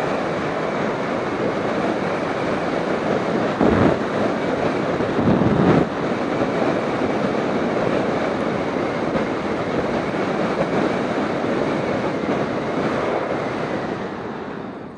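Wind rushing over the microphone of a motorcycle riding at road speed, a steady rush of wind and road noise with two brief louder swells about four and six seconds in. It dies down near the end as the bike slows.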